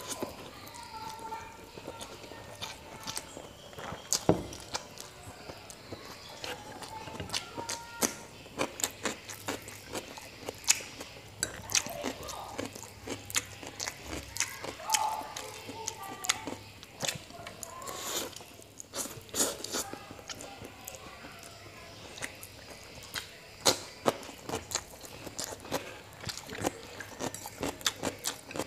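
Close-miked eating of mie goreng Jawa (Javanese fried noodles): chewing and slurping, with frequent sharp clicks and smacks.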